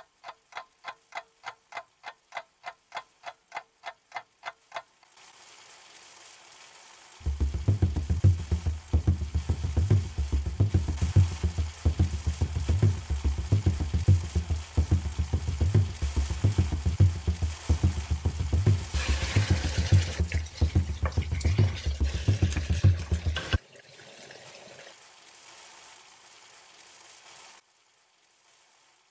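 Background music: a run of quick, evenly repeated notes, then a steady low beat from about a quarter of the way in, which stops sharply well before the end and leaves only a faint hiss.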